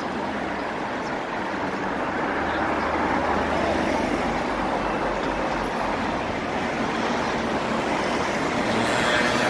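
Steady road traffic noise, with the low engine rumble of a passing vehicle for a few seconds in the middle.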